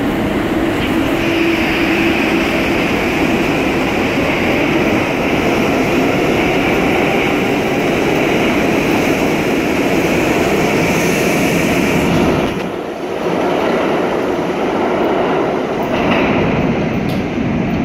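R62A New York City subway train pulling out of the station and picking up speed past the platform, its wheels and motors running loud and steady. The noise dips briefly about thirteen seconds in as the last car clears, then the train noise carries on.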